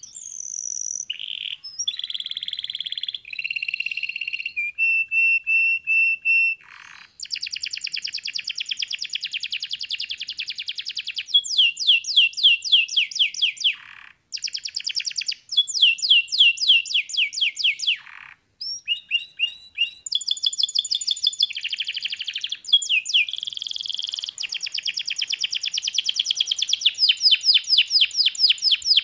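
Domestic canary singing a long, varied song: rapid trills of quickly repeated notes that change pitch from phrase to phrase, with a few brief pauses, some phrases ending in a falling sweep.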